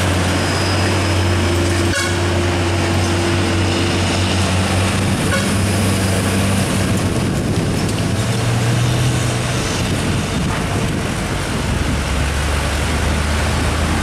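Diesel engines of heavily loaded tandem-axle cargo trucks straining up a steep bend, a steady low drone. About halfway through, the first truck's note fades and the next truck's engine takes over at a different pitch.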